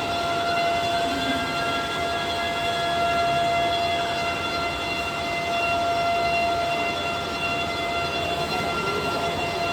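Bacci T4MO CNC wood-machining centre running: a steady high whine with several even overtones over dense machining noise, the pitch wavering slightly near the end.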